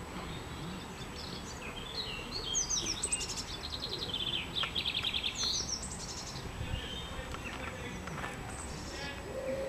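A small songbird singing a quick run of high, repeated notes and trills for a few seconds, starting about a second and a half in, followed by fainter chirps, over steady low background noise.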